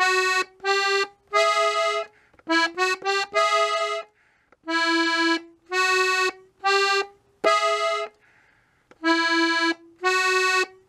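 Three-row diatonic button accordion, the treble side played alone: a slow single-note melody picked out in short phrases with brief gaps between notes. A quick run of short notes comes about two and a half seconds in, and there are short pauses around four and eight and a half seconds.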